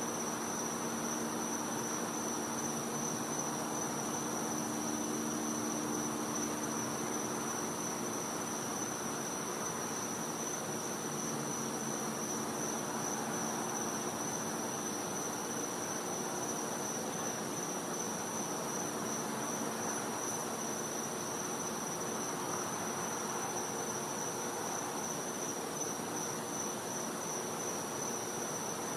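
Night insects chirring: one steady, unbroken high-pitched trill with a slight pulse, over a faint low background hum.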